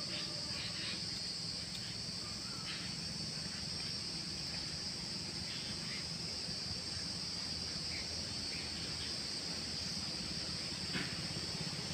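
Steady high-pitched chorus of insects, unbroken throughout, with a low steady background hum. A few brief chirps stand out here and there.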